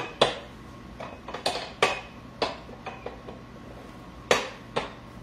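Steel adjustable weight bench being adjusted, its backrest frame and adjustment mechanism giving a series of sharp metallic clanks and clicks, about eight in all and irregularly spaced.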